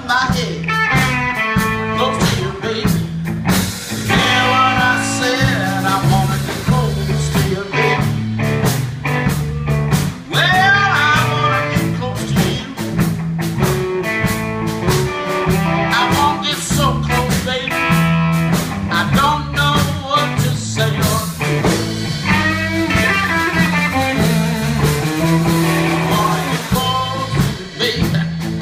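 Live blues band playing electric guitar and drum kit, with a bass line stepping underneath.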